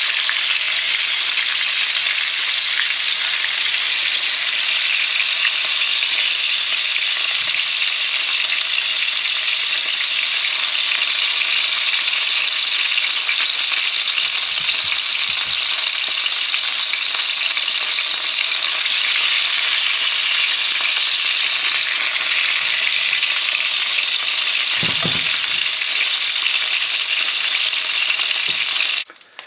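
Hot oil sizzling steadily in a frying pan, with flour-dredged pieces of salt cod (baccalà) frying in it. The sizzle cuts off abruptly near the end.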